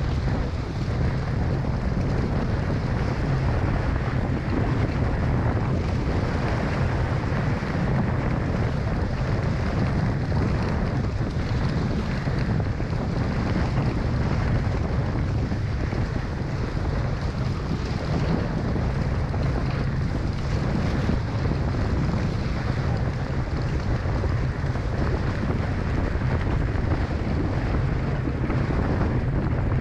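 Wind buffeting the microphone over water rushing and slapping along the hulls of a Hobie 16 catamaran sailing fast in strong wind; a steady, dense noise, heaviest in the low end.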